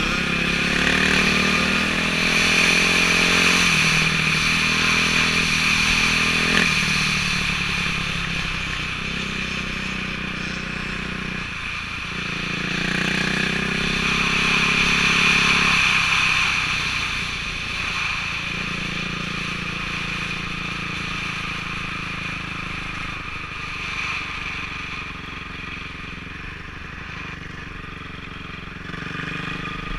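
Motorcycle engine heard from the bike itself as it rides an ice track. It revs up and drops back at gear changes, is loudest in two stretches of hard acceleration, and eases off toward the end.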